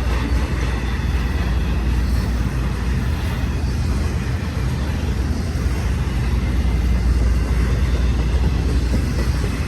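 Intermodal freight train cars rolling past in a steady low rumble, the wheels running on the rails.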